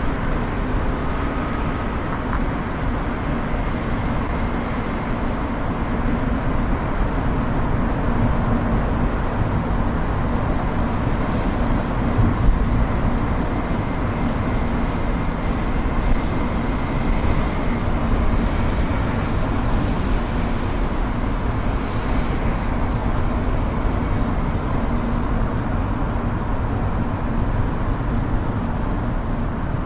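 Steady driving noise of a car on city roads: tyre and engine rumble, with traffic noise around it.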